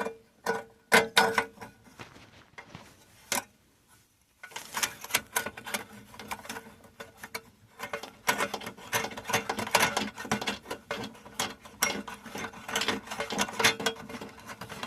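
Rapid small clicks and rattles as the retaining sleeve of a new cigarette lighter socket is threaded on and tightened behind a truck dash, pausing briefly about four seconds in and then getting busier.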